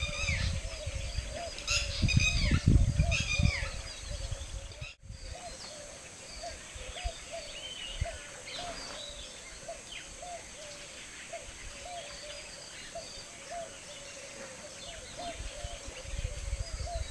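Birds calling: a short call note repeated about one and a half times a second, with higher chirps over it. A low rumbling noise, like wind on the microphone, sits under the first few seconds, and the sound drops out abruptly about five seconds in.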